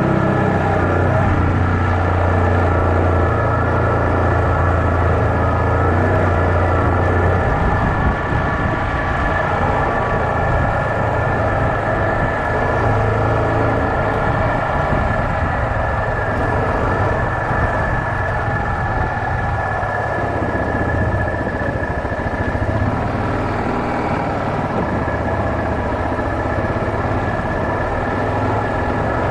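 Yamaha Kodiak 450 ATV's single-cylinder four-stroke engine running steadily while the quad rides along a dirt trail. The low drone changes about seven seconds in, then carries on steadily.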